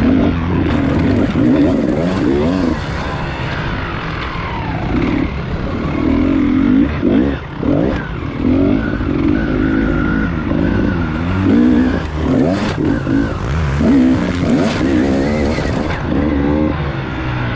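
Beta enduro motorcycle engine revving hard and easing off again and again while ridden over rough track, its pitch repeatedly rising and falling, with low wind rumble on the microphone.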